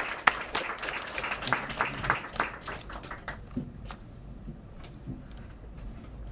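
A small audience applauding, the clapping thinning out and dying away about three and a half seconds in. After it come a few faint low knocks and rustles.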